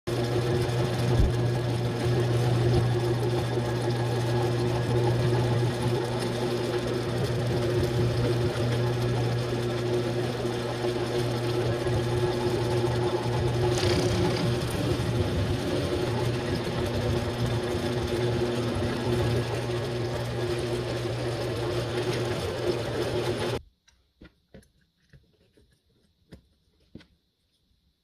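Workshop power tool motor running steadily with a strong low hum, then stopping abruptly about three-quarters of the way through, followed by a few faint clicks.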